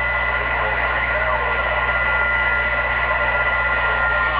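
Browning Golden Eagle Mark III CB base station receiving 11-meter skip: steady static hiss with two steady whistling tones and faint, garbled distant voices underneath.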